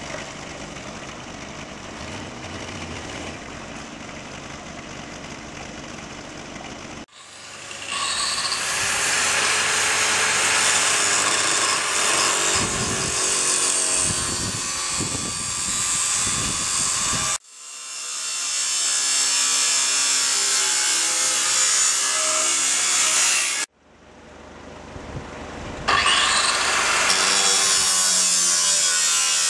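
Power tool cutting through the steel body of a scrap Toyota Land Cruiser, running loud and steady in three spliced stretches that start and stop abruptly, after a quieter, even machine sound for the first several seconds.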